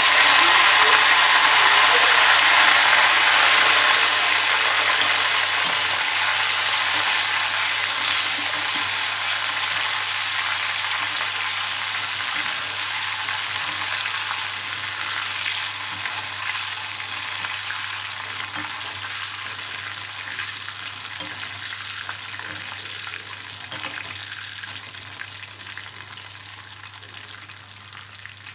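Raw banana slices deep-frying in a kadai of hot oil, sizzling and crackling hard right after turmeric salt water hits the oil, then dying away steadily as the water boils off. A metal spoon stirs the chips partway through.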